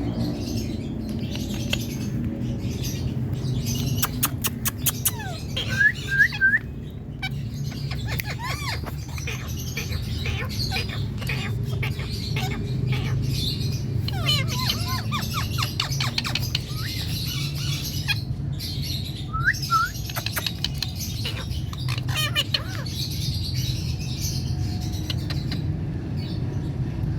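Pet parrot chirping and squawking in short calls with quick pitch glides, plus a run of sharp clicks about five seconds in, over a steady low hum.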